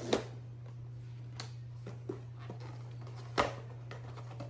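A few sharp taps and light rustles of a small blind-box package being handled and opened, the loudest click about three and a half seconds in, over a steady low hum.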